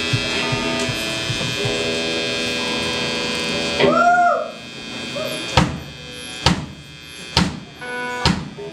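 Live rock band with amplified electric guitars: a held, ringing chord for about four seconds, then a loud short swooping note, then single drum hits about once a second with a chord sounding again near the end.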